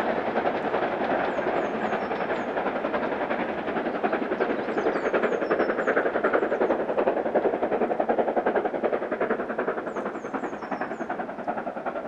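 Steam locomotive running at speed with a rapid, even exhaust beat.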